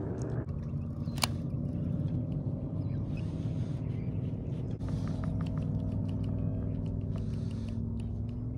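MotorGuide Xi3 electric trolling motor on a kayak running with a steady hum that shifts slightly in pitch, with a sharp click about a second in and a few faint ticks later.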